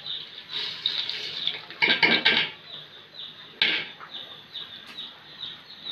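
Raw polao rice poured into hot oil in an aluminium pot, sizzling, with a long metal spatula scraping and stirring it in a few louder strokes.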